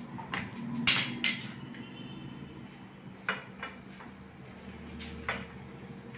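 Scattered metallic clinks and knocks against a stainless steel plate as the masala stuffing on it is handled, about six in all, the loudest two about a second in.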